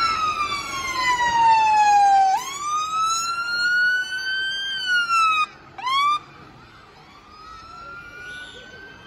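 Scania fire engine's siren sounding a slow rising and falling wail, breaking into a brief quick yelp about two-thirds of the way through, then continuing more quietly.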